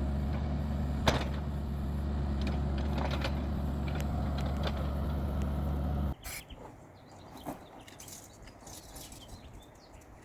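Engine of heavy digging machinery running steadily, with a sharp knock about a second in. It cuts off abruptly about six seconds in, leaving faint outdoor ticks and chirps.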